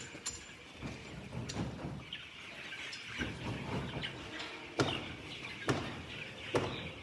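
A house full of chickens chirping and peeping together. Several sharp knocks, about one a second in the second half.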